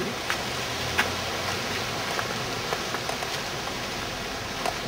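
Steady hiss of outdoor background noise with a few faint clicks and ticks.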